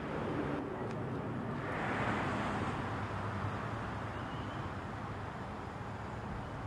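Low, steady vehicle rumble mixed with wind noise, swelling briefly about two seconds in and then easing slightly.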